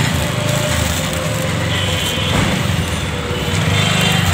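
A small engine running steadily nearby, a low pulsing drone, while a plastic parcel bag crinkles as it is handled.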